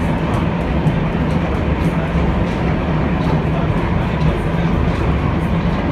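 A Zagreb M-24 vintage tram running, heard from inside its wooden car: a steady low rumble from the wheels and running gear, with faint light clicks.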